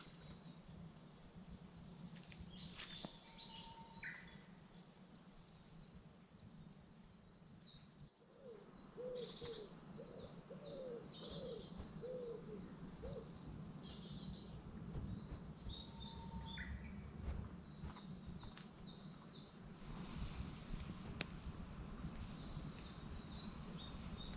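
Faint outdoor bird chorus: small songbirds chirping repeatedly over a steady high insect buzz. About nine seconds in, a short run of lower, evenly spaced notes is heard.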